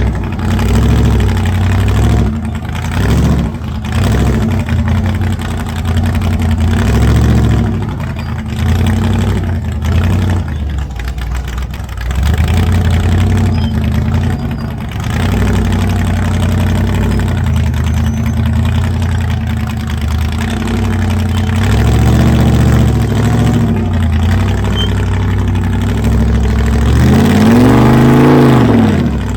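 Rock-crawling off-road rig's engine revving in repeated bursts and dropping back between them as it works over boulders. Near the end it gives one strong rev that rises and then falls.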